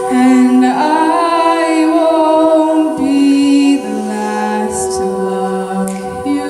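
A cappella vocal group singing held chords over a bass line that steps down in pitch, with a higher melodic line moving above them.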